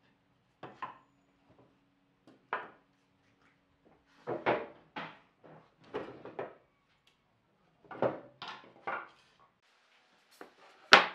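Chunks of sawn scrap wood knocking and clattering against each other as pieces are pulled from a pile, in short separate bursts. Near the end comes one sharp, loud knock as a piece is set down on a wooden workbench.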